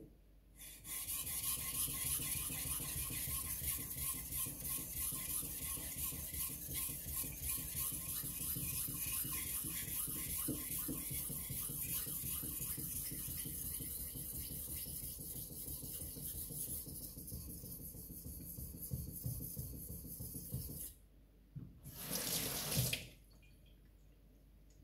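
Takamura Chromax knife blade being stroked back and forth over a wet whetstone, a steady run of rapid scraping strokes that stops about 21 seconds in, followed by one short burst of scraping a little later.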